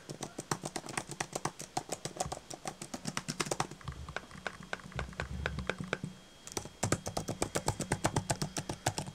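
Rapid typing on the scissor-switch keys of an Apple Magic Keyboard for iPad Pro, a quick run of key clicks. The keys go sparse for a couple of seconds midway, then the clicking comes back fast.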